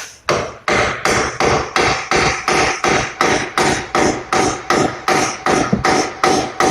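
Rapid, steady hammer blows, about four a second, with a ringing note, knocking the splined lower mounting bolt out of a front shock absorber's eye on the steering knuckle.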